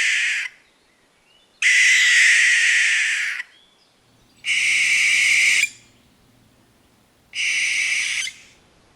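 Barn owl screeching: a series of long, harsh screeches, each lasting one to two seconds, with pauses of a second or two between them.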